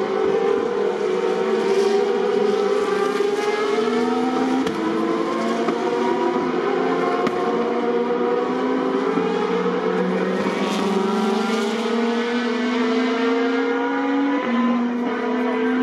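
Several Boss GP single-seater racing cars accelerating hard away from the start, their engines overlapping. The pitch climbs again and again, dropping back at each upshift.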